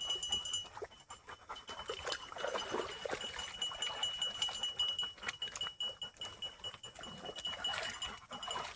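Dogs whining and vocalizing in bleat-like, wavering calls, loudest about two seconds in and again near the end, over a steady high-pitched tone.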